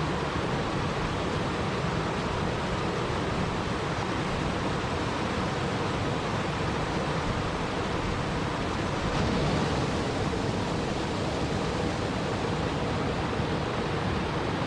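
Steady rushing water, an even hiss with no distinct splashes, swelling slightly about nine seconds in.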